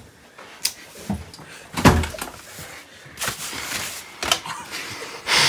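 Scattered knocks and bumps with rustling in a small room, the loudest a heavy thump about two seconds in.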